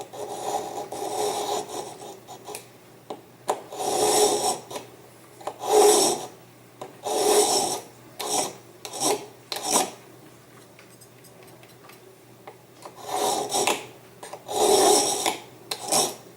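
Kitchen knife being sharpened: about ten rasping strokes, each up to a couple of seconds long, in irregular groups with a longer pause in the middle.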